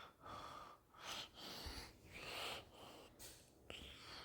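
Faint breathing, four or five breaths in and out.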